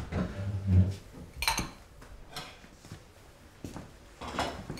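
Crockery and cutlery clinking as bowls and plates are cleared from a table and set down on a kitchen counter, a few separate knocks spread out. In the first second there is a louder low scraping rumble, like a chair pushed back on the floor.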